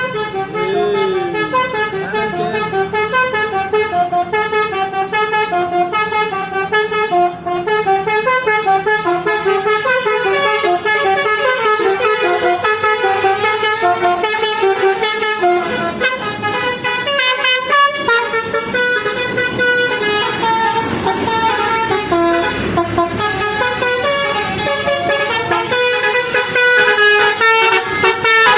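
Indonesian bus telolet horn, a multi-trumpet air horn, playing a fast melody of short stepped notes with several tones sounding together. There is a short break about two-thirds of the way in.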